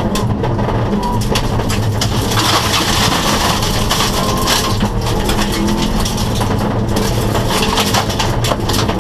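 Subaru rally car engine running, heard inside the cabin, with loose gravel rattling and pinging against the underbody as it drives a gravel stage; the gravel hiss grows louder from about two and a half to five seconds in.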